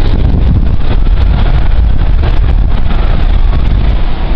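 Wind buffeting the phone's microphone: a loud, steady low rumble with irregular crackling flutter.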